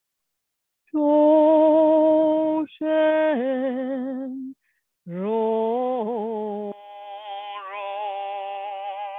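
Slow, chant-like singing of long held vowel notes. A low note is held for about three seconds and steps down in pitch. After a short break, a second note rises and wavers. From about two-thirds of the way through, a higher, quieter voice holds a steady note.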